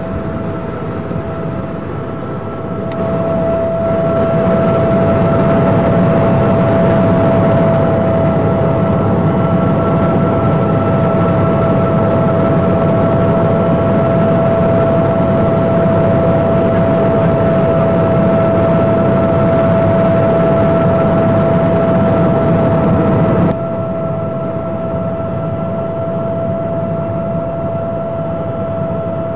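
Helicopter in flight heard from inside the cabin: a steady engine and rotor noise with a constant whine over it. It grows louder about three seconds in and drops a step about six seconds before the end.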